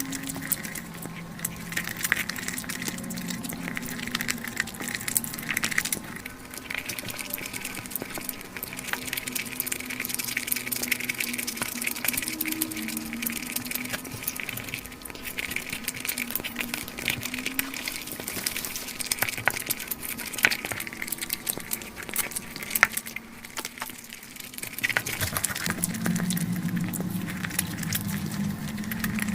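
Close-miked crunching and chewing of fried chicken, a dense run of sharp crackles and clicks from biting into the crisp batter.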